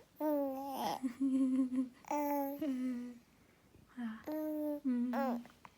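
A young baby cooing: a string of four or five drawn-out humming vowel sounds, some gliding in pitch, with short pauses between them.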